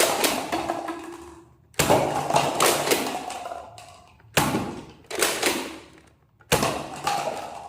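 Nerf dart blaster being fired: three sharp shots, about two to two and a half seconds apart, each ringing out for a second or so.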